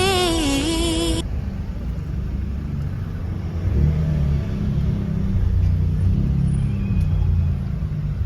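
Background song cuts off about a second in, leaving a steady low vehicle rumble with a faint shifting engine hum.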